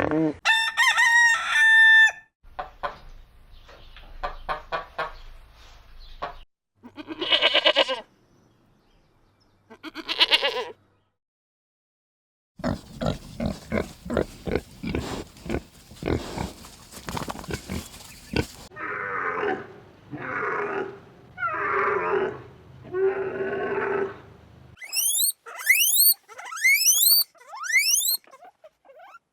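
Farm animal calls in quick succession, one kind after another, with short gaps and a brief silent pause near the middle; among them chicken clucking. The calls end with a run of quick, high rising chirps.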